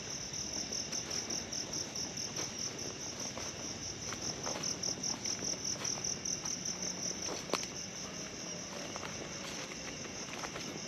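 Night insects, crickets by the sound, chirping in a steady high pulsing trill of about five pulses a second. Scattered footsteps crunch and snap on dry leaves and twigs, with a sharper snap about seven and a half seconds in.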